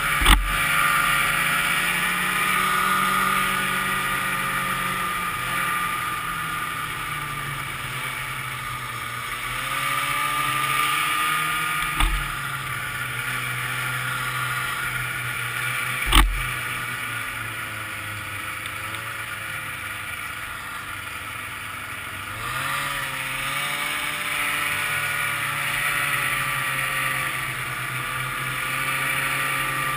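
Ski-Doo Grand Touring snowmobile's two-stroke engine running at trail speed, heard from on the sled, its pitch rising and falling with the throttle over wind and track noise. Three sharp thumps: one just after the start, one about twelve seconds in and one about sixteen seconds in.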